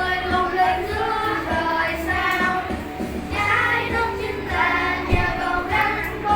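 Children singing a Vietnamese song with instrumental accompaniment.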